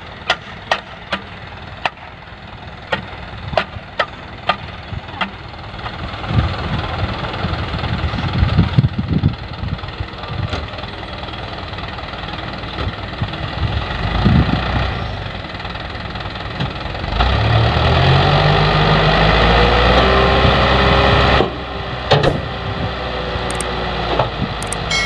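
Dump truck's diesel engine idling, with sharp clicks of shovel work in the first five seconds. About seventeen seconds in, the engine revs up and holds as the hydraulic hoist raises the loaded tipper bed, then drops back abruptly about four seconds later.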